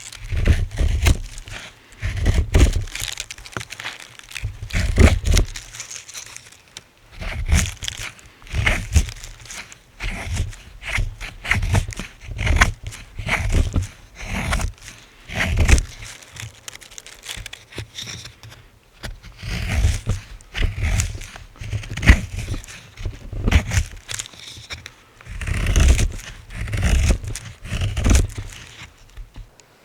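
Close-up crinkling and rustling in irregular bursts about every second, with low thuds beneath, as of material being handled.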